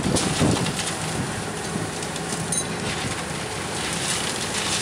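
Steady rush of wind and rough sea, with the rescue boat's propeller wash churning astern under tow and wind buffeting the microphone.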